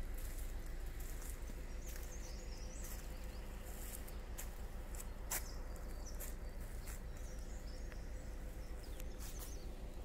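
Outdoor ambience: faint bird chirps over a low steady rumble, with a few sharp clicks.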